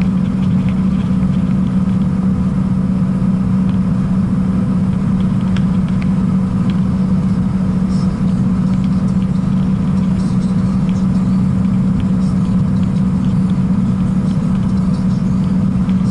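Scania P-380 dump truck's diesel engine and road noise heard inside the cab at steady highway cruising speed: an even low drone that does not change, with a few faint ticks from the cab.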